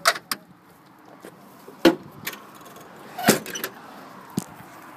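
Several short sharp knocks and clicks at irregular intervals, the loudest just under two seconds in and just past three seconds, over a faint steady background.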